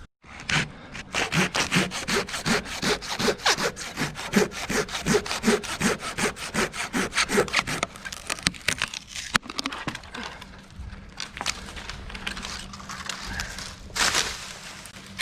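Hand saw cutting through wood in quick back-and-forth strokes, about three a second, each stroke with a short tone. About eight seconds in the strokes turn fainter and less regular.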